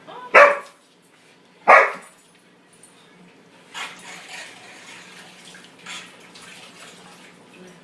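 A dog barks twice, loud and short, about a second and a half apart, followed by a few fainter short sounds.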